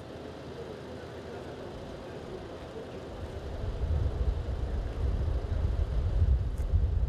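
Outdoor background with a low, gusty rumble of wind buffeting the microphone, building from about three seconds in.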